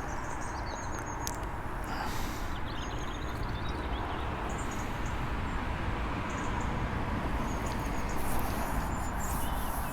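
Steady outdoor background noise, a low rumbling hiss, with faint, brief bird chirps scattered over it.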